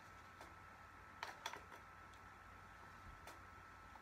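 Near silence, broken by a handful of faint, short clicks from a DSLR camera body being handled.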